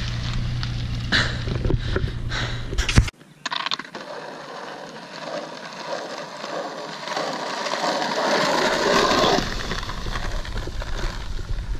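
Skateboard wheels rolling over asphalt, growing louder to a peak about nine seconds in and then easing off. Before that comes a steady low rumble with a few clicks, which cuts off abruptly about three seconds in.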